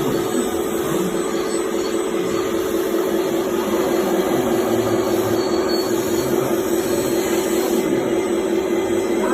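Electric motor and gears of a remote-control model vehicle whirring steadily under a constant hum.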